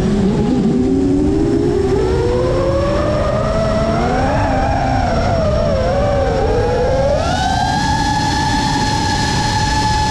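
FPV quadcopter motors and propellers whining, their several close pitches sliding up and down together as the throttle changes over a rush of prop wash. About seven seconds in the pitch jumps up and holds one steady high whine.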